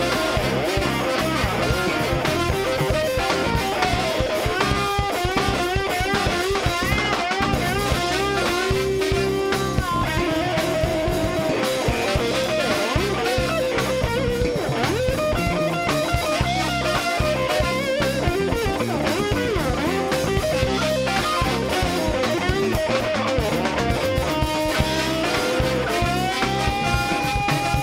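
Live electric blues band playing an instrumental passage: electric guitar, drums and a horn section, the lead line full of bent, wavering notes. A long held note enters near the end.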